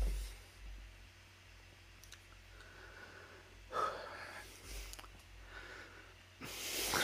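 A man breathing and sniffing unevenly as he breaks down in tears, with a short sob-like catch about four seconds in and a long, noisy breath in near the end.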